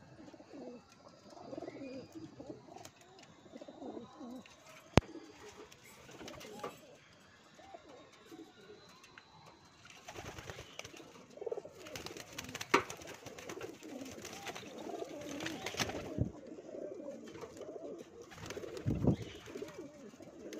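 Madrasi pigeons cooing in a loft, low wavering calls one after another. A single sharp click about five seconds in is the loudest sound, and from about halfway there is more crackling and clicking around the cooing.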